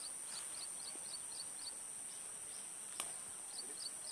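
Field insects: a steady high-pitched buzz throughout, with runs of short high chirps at about four a second, one run at the start and another near the end. A single sharp click about three seconds in.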